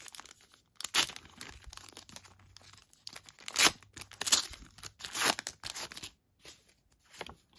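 Foil wrapper of a Match Attax trading-card packet being torn open and crinkled, a run of short sharp rips and crackles, the loudest about a second in and again between three and a half and five and a half seconds in.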